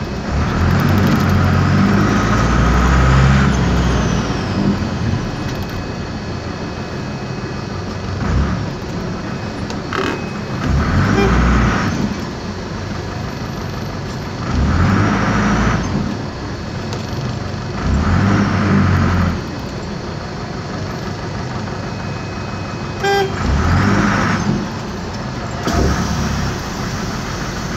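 Air-cooled Deutz diesel engine of an Otokar M-2000 midibus heard from inside the cabin, running under a steady drone and pulling harder in about six surges of a second or more as the bus moves off and slows in traffic. It is a noisy engine and exhaust.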